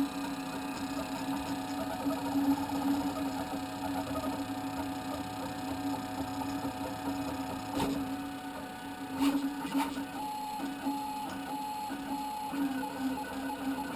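Homemade 3D printer running: its stepper motors whine in short tones that jump in pitch as the head moves, over a steady hum. A few sharp clicks come near the middle.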